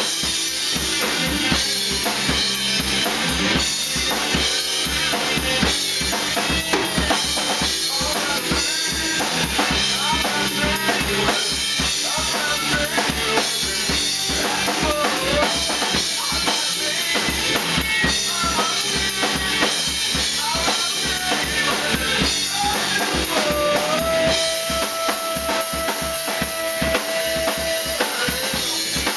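Rock band playing live: a drum kit pounding out a steady beat on kick and snare under electric guitar and bass, with a male singer singing into a microphone. Near the end one note is held for several seconds.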